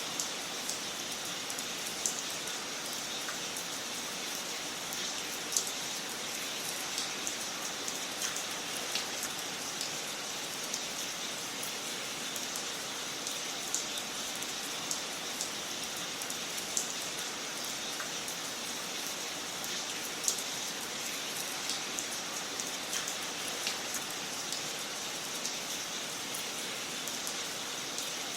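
Wood fire crackling in a fireplace: a steady soft hiss with frequent irregular pops and snaps, a few of them louder.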